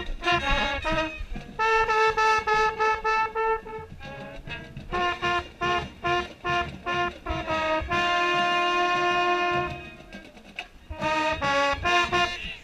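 Mellophone played right at the microphone: a run of short detached notes, a held note about two seconds in, and a longer held note about eight seconds in, then a few quick notes near the end.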